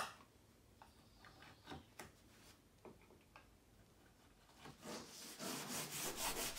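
A chisel pares a wooden wing spar's chamfer with faint, scattered light scrapes and ticks. From about five seconds in, a sandpaper block is rubbed over the wood in rhythmic back-and-forth strokes that grow louder.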